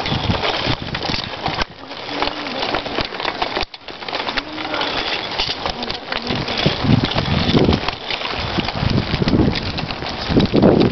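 Wind buffeting the microphone in gusts, with low rumbling surges that come and go and drop off briefly twice, and a few short low wavering tones in the middle.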